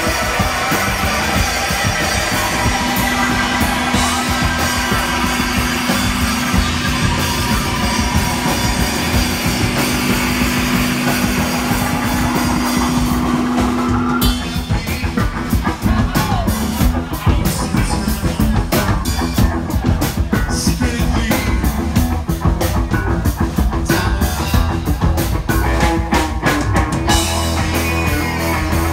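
Live psychedelic rock band of electric guitar, bass guitar and drum kit playing loud. A held low note sits over a dense wash of sound for the first half, then about halfway through the music breaks into sharper, rapid drum and cymbal hits.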